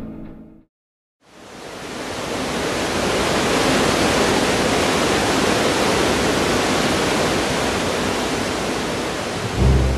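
Water rushing out of a reservoir's outlet conduits: a steady, full rush of churning water that fades in over about a second and then holds.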